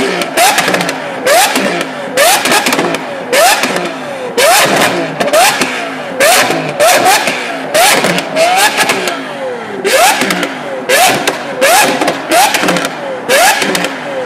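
Lamborghini Aventador SV's V12 being revved in quick blips, about one a second, the engine note shooting up and dropping back each time, with sharp cracks and pops from the exhaust on many of the blips.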